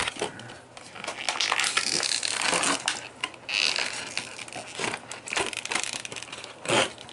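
Plastic action-figure packaging crinkling and crunching, with scattered small clicks and scrapes, as the figure is worked free of it.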